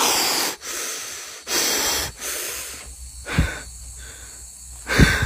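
A man panting hard after running: four long, heavy breaths in quick succession, then two shorter, sharper huffs about three and a half and five seconds in.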